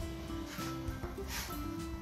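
Soft background music of held notes that change every half second or so.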